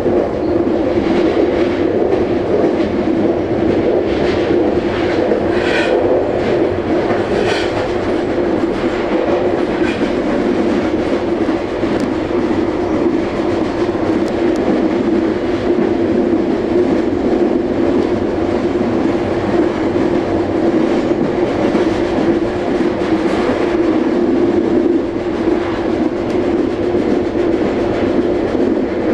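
Amtrak Regional passenger train running steadily at speed, heard on board: a constant rumble with a steady hum, and wheels clicking over the track several times in the first ten seconds.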